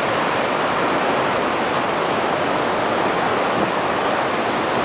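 Niagara Falls: the steady, unbroken rush of a huge volume of falling water.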